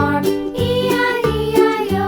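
Children's background music: a bouncy melody over a steady bass beat.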